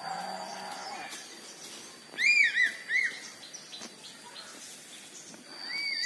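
Circling eagle calling: a quick run of three or four high whistled notes, each rising and falling, about two seconds in.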